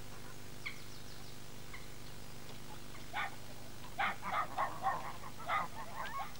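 Waterfowl honking in a quick, uneven run of calls that starts about three seconds in and is thickest a second later. A few small bird chirps come earlier, and a steady low hum runs underneath.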